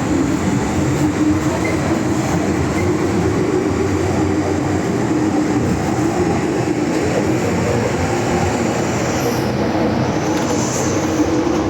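Inside an MTR M-Train electric multiple unit running at speed: a steady loud rumble of wheels on rail, with a wavering hum from the running gear.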